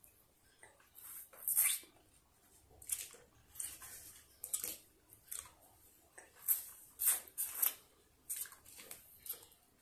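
Close, wet mouth sounds of sucking and licking a sour candy lollipop: a string of irregular short smacks and slurps.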